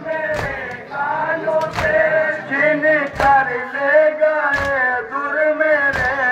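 Male mourners chanting a noha, a Shia lament, together, with a sharp collective chest-beat (matam) about every second and a half in time with the chant.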